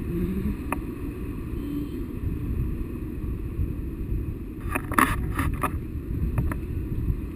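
Airflow buffeting the microphone during a tandem paraglider flight: a steady low rumble of wind noise. A quick cluster of sharp clicks comes about five seconds in.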